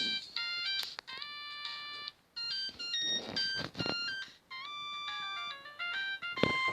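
Nokia 3510i polyphonic ringtone playing: a synthesized melody of short electronic notes, with a few sharp drum-like hits.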